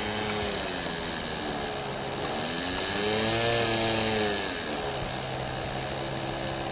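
Boomerang RC trainer's small two-stroke model engine running at low throttle as the plane taxis on grass. Its pitch dips, then rises and falls again in a brief throttle-up about three seconds in, the loudest part.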